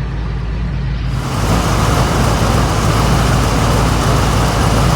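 1962 Pontiac engine idling steadily; about a second in, a loud rushing hiss of air being drawn into the brake booster's vacuum hose starts and keeps going, the sound of a vacuum leak inside the brake booster.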